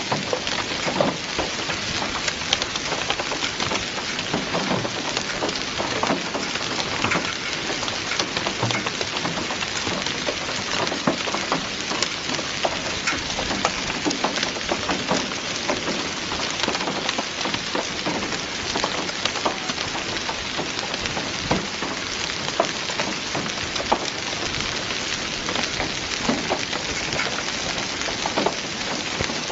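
Heavy rain mixed with hail falling on wet stone paving: a steady dense hiss full of sharp ticks from hailstones and large drops striking.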